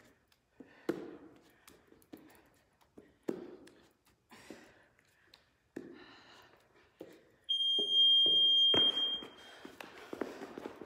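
Heavy breaths and soft taps about once a second during plank hand taps, then a loud steady electronic beep of about two seconds from a gym interval timer marking the switch of interval, followed by quick footfalls of jogging in place on the gym floor.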